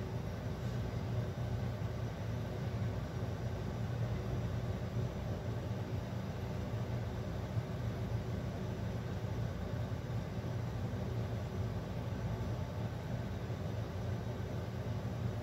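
Steady low rumble with a faint hiss, unchanging throughout: kitchen background noise around a covered pot simmering on a gas stove.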